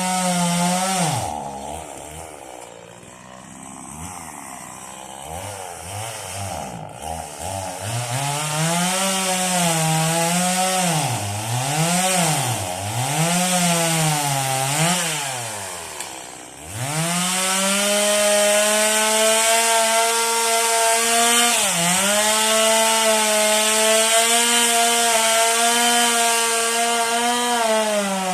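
Stihl two-stroke chainsaw engine. It drops from high revs to low, is revved up and down in short blips about every second and a half, then is held at full throttle from about halfway. Its pitch sags briefly twice as it takes the load of a cut.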